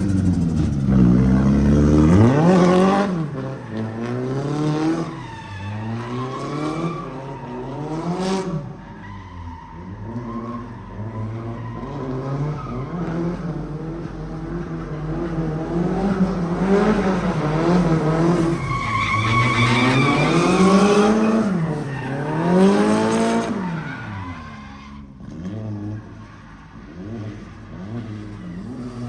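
Drift car's engine revving up and falling back over and over while the car slides, with tyres squealing, loudest a little past the middle.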